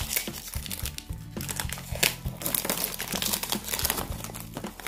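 Crinkling and rustling of a small perfume box's packaging as it is unwrapped and opened by hand, in quick irregular crackles, over quiet background music.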